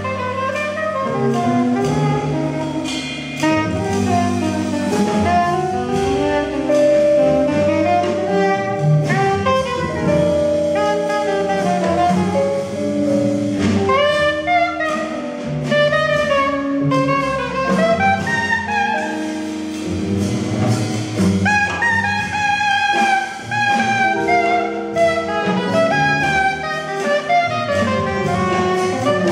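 Big band jazz: a soprano saxophone plays the lead melody over the band's held brass chords.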